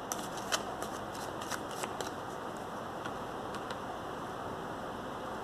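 A deck of tarot cards shuffled by hand: quick light clicks and snaps of cards in the first two seconds, thinning out after that, over a faint steady hiss.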